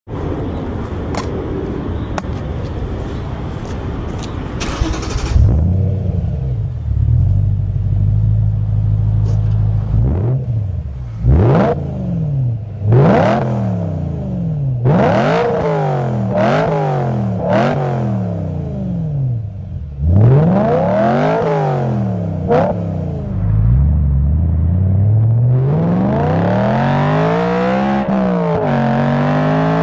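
BMW M3 E90's V8 engine. After some clicking and hiss, it idles steadily from about five seconds in, then is revved in a series of quick throttle blips that rise and fall. Near the end it gives a longer climbing rev with a brief dip.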